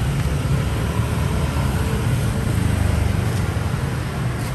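Motorbike and scooter traffic noise: a steady low rumble of small engines passing, with no single event standing out.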